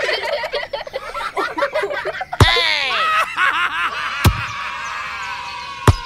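Squeaky, high-pitched cartoon voices chattering gibberish and giggling, with three sharp slap-like hits about two and a half, four and a quarter, and six seconds in.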